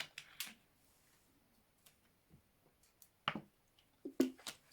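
A few faint, separate clicks and small rustles from steel handcuffs being handled and worked during an escape attempt with a paper shim. It is mostly quiet between them, with a sharper click a little past three seconds and a few more just after four.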